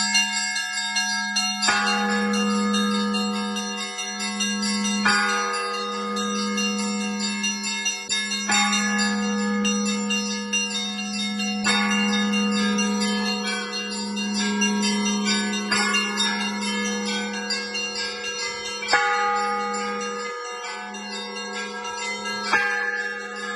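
Russian Orthodox church bells ringing a peal: many small bells strike rapidly in the treble over a deep bell whose hum carries on between its strokes, struck about every three and a half seconds.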